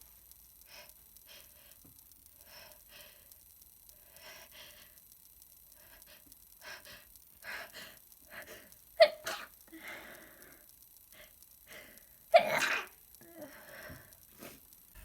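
A person who is sick sneezing, wet and messy: short gasping in-breaths build up over several seconds, then two loud sneezes come about nine and twelve seconds in, the second one longer.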